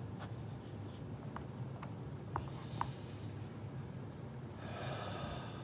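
A man breathing out through his nose, a soft hiss near the end, after a few faint clicks of small things being handled at the table.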